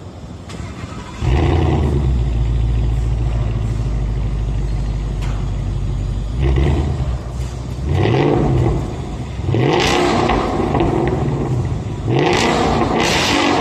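Ford Mustang with an aftermarket exhaust, parked and being revved. About a second in the engine jumps to a steady held rev. From about seven seconds it is blipped several times, each rev rising in pitch.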